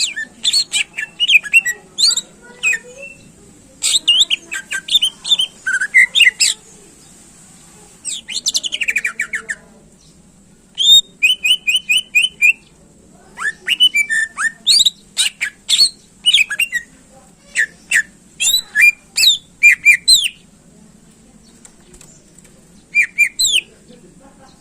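Cucak ijo (greater green leafbird) singing in bursts of rapid chirps, whistled slurs and quick trills, with brief pauses between phrases, over a faint steady hum.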